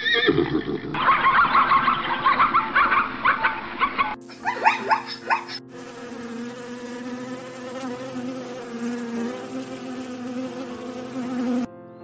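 Plains zebras calling with whinny-like barks for about four seconds, then a second and a half of quick falling calls, then the steady wing buzz of a hoverfly at a flower, over soft background music.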